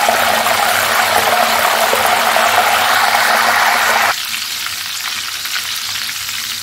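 Raw banana slices deep-frying in hot oil in a steel kadhai, crackling loudly from the salted water just dribbled into the oil. About four seconds in, the crackling drops suddenly to a quieter, steady sizzle.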